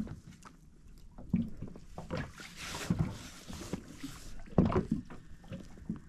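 Small boat drifting on the sea: water slapping against the hull, with a few irregular knocks about 1.5, 3 and 4.5 seconds in.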